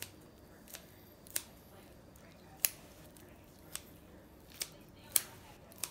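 Kitchen shears snipping through a raw chicken thigh around the bone to debone it: about seven sharp, short snips at an uneven pace.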